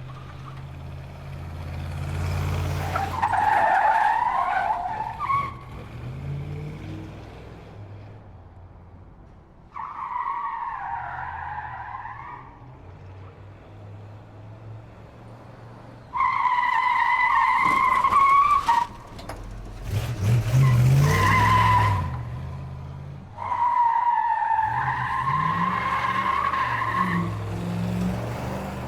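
Muscle car driving hard with its engine running underneath, tyres squealing in five separate skids. Each squeal lasts about two to four seconds, and the two around the middle are the loudest.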